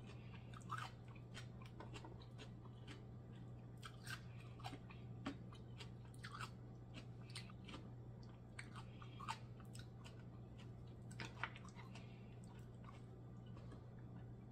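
A person chewing mussels and rice, with soft wet mouth clicks and smacks scattered irregularly throughout, over a low steady hum.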